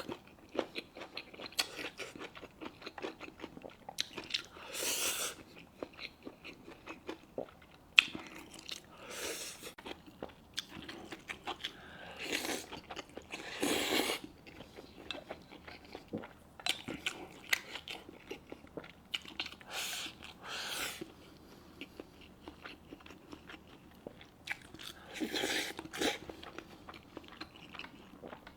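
Close-up sounds of a person chewing and biting soft, fatty braised pork knuckle: wet mouth clicks and smacks, with several longer, louder stretches a few seconds apart.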